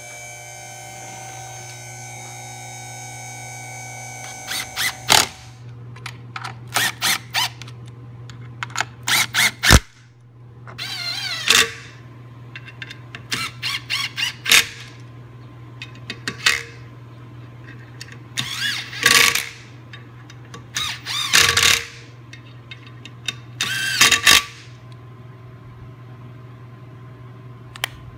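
Small cordless power driver running bolts into a two-piece brake rotor in short bursts, each under a second long, a dozen or more over about twenty seconds, over a steady low hum.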